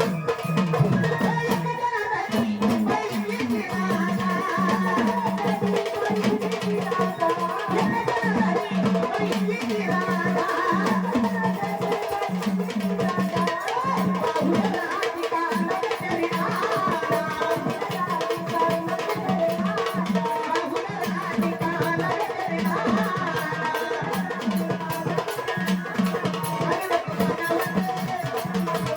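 Marathi devotional folk song playing, with a steady, rhythmic drum beat and percussion.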